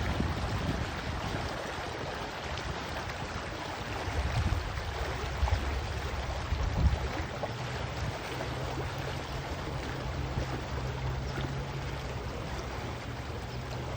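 Steady rush of running water, with low rumbles swelling and fading and a faint steady low hum coming in about halfway through.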